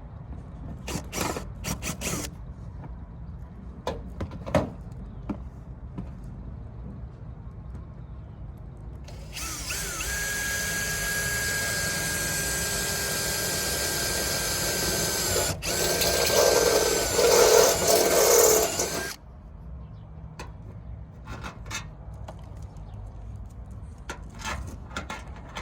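Power drill drilling a hole in a car bumper: a steady whine starting about a third of the way in, getting louder with its pitch dipping as the bit bites, then stopping after about ten seconds. Light clicks and handling knocks before and after.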